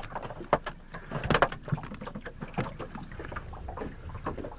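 Water slapping against the hull of a small boat, with scattered knocks and clatter at irregular intervals.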